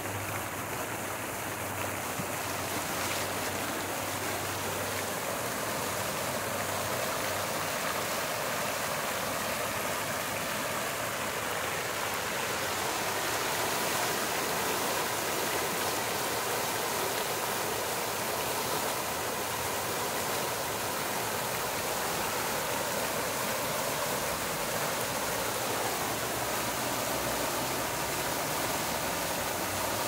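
Water fountain splashing steadily into its stone basin. The jets climb from low sprays to tall columns, and the splash grows a little louder over the first several seconds.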